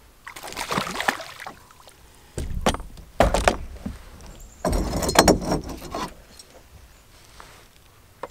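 A hooked perch splashing at the water's surface as it is reeled in and lifted out, in three bursts of splashing and rustling, the last two the loudest.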